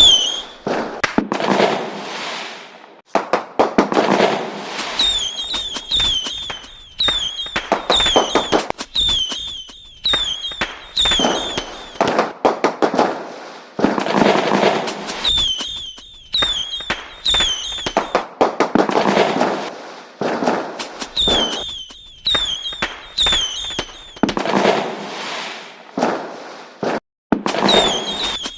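Fireworks going off: sharp bangs, each followed by a few seconds of crackling, over and over. Short high chirping whistles repeat through most of it.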